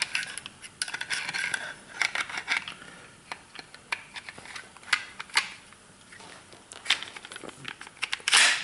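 Glock 30 pistol being reassembled by hand, its slide being fitted back onto the frame: scattered small clicks, taps and scrapes of metal and polymer parts, with a louder rasping snap near the end.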